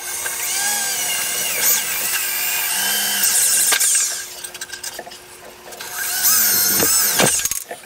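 Electric drill with a 3/16-inch bit boring through two overlapping sheet-steel body panels, with a high whine that wavers as the bit cuts. It runs for about four seconds, eases off, then runs again for a second hole from about six seconds in until shortly before the end.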